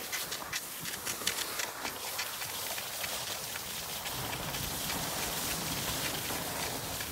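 Cross-country skis sliding and scraping over packed snow with ski poles crunching in, a quick run of crunches and clicks that turns into a steadier gliding hiss about four seconds in.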